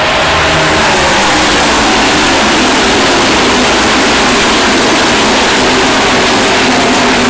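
A pack of stock cars racing past at speed, their engines blending into one loud, steady din, with engine notes faintly rising and falling.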